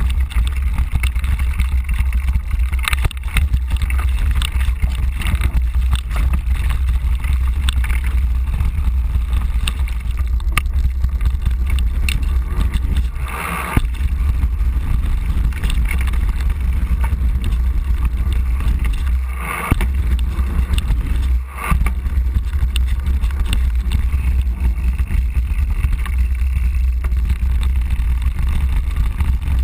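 Mountain bike ridden fast down forest trails, heard on an old GoPro HD Hero: a steady wind rumble on the microphone over the bike's rattling and the tyres crunching on gravel and rock. The sound drops out briefly three times, about a third of the way in and twice just after the middle.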